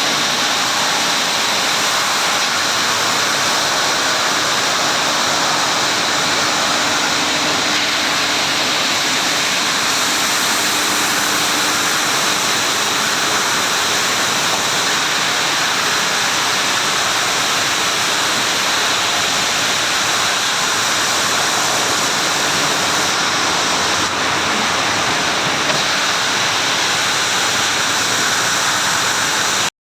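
Automatic sanding machine for MgO (magnesium oxide) boards running, a loud, steady rushing noise that does not change.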